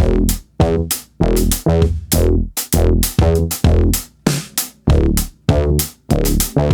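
Electronic background music with a drum-machine beat, about two hits a second, over a bass and synth line.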